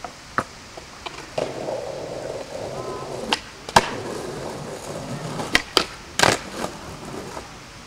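Skateboard wheels rolling over a skatepark surface, broken by a series of sharp board clacks from pops and landings. The loudest clack comes about four seconds in, followed by a double strike a little after six seconds, and the rolling dies away near the end.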